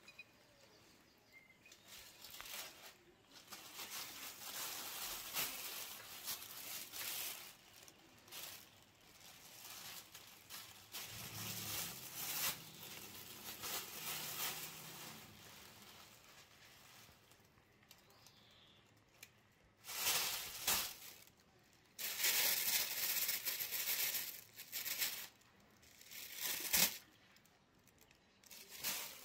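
Thin plastic carrier bag rustling and crinkling in irregular bursts as a kitten pushes around inside it, loudest in the second half.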